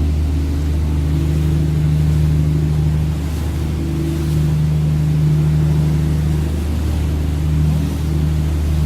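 Tour boat's engine running with a steady low hum, heard from aboard.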